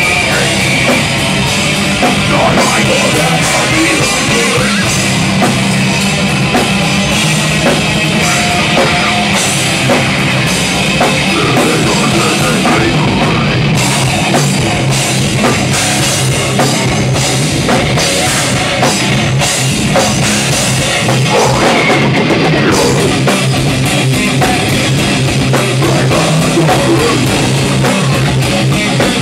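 A live heavy rock band playing loud: electric guitar and drum kit, with a vocalist singing into a microphone.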